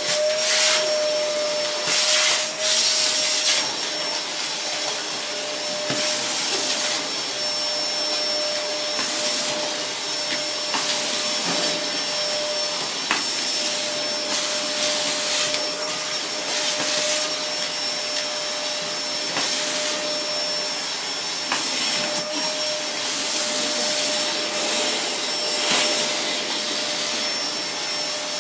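Red canister vacuum cleaner running steadily with a high whine and suction hiss. The hiss surges louder in short spells every second or few as the wand moves over the floor.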